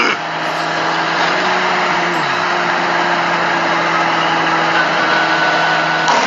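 A steady engine-like drone with a constant hiss, holding a few low tones, with a short falling tone about two seconds in.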